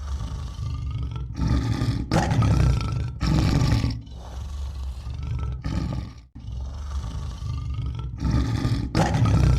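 A large animal roaring, a run of long loud roars one after another, the loudest about two and three and a half seconds in and again near the end.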